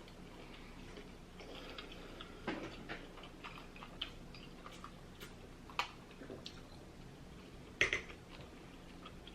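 Close-miked eating of lobster tail: scattered soft mouth clicks and wet smacks as the meat is chewed, the loudest about eight seconds in.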